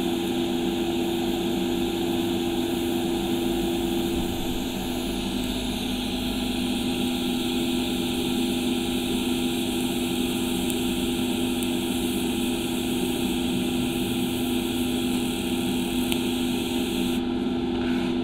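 TIG welding arc on a back-purged stainless steel exhaust pipe: a steady hiss over a constant low hum, with the arc cutting off about a second before the end.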